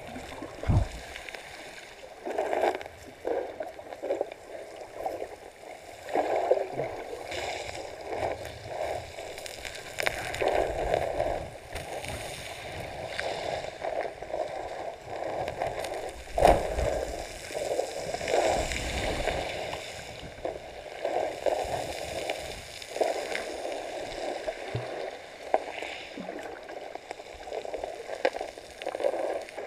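Muffled underwater water noise picked up by a submerged camera: irregular sloshing and gurgling surges, with a few sharp knocks, the loudest about a second in and again about halfway through.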